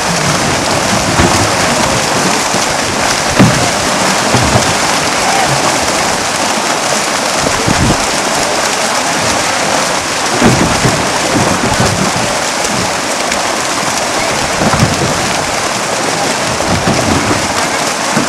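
Many fish thrashing and leaping in a crowded seine net in shallow water: a dense, continuous splashing patter. Heavier splashes come now and then, the loudest about three and a half seconds in.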